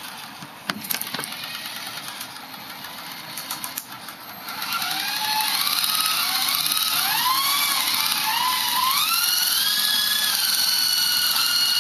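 Lama V3 coaxial electric RC helicopter spinning up about four and a half seconds in. Its rotors make a steady rush of air, and its motors whine, the pitch wavering up and down as the throttle changes. A few light clicks come before it.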